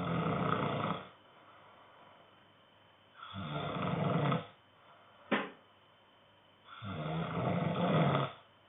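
A sleeping man snoring: three long, rasping snores about three and a half seconds apart, with a single short, sharp sound between the second and third.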